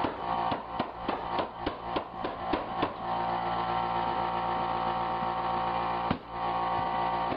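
Background music with guitar and a drum beat, about three beats a second at first, then a few seconds of held chords.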